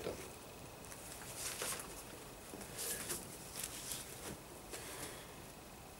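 Faint, scattered rustles and scuffs, about five in all, of a flag on its pole and paper being handled.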